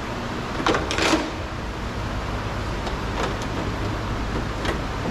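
Small clicks and scrapes of the door handle's inner parts being worked loose inside a car door, the loudest pair about a second in and a few lighter ones later, over a steady low rumble.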